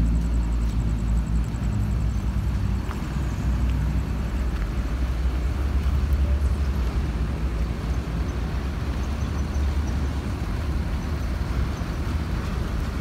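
Large diesel bus engine idling with a steady low rumble that swells a little around the middle.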